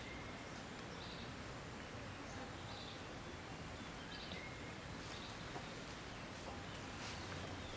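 Outdoor ambience: a steady background hiss with faint, short, high bird chirps scattered through it and a couple of faint clicks later on.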